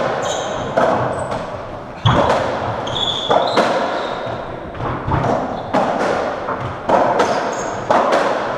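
Racketball rally on a squash court: the ball cracking off rackets, the walls and the floor about once a second, each hit echoing round the court, with short squeaks of shoes on the wooden floor between hits.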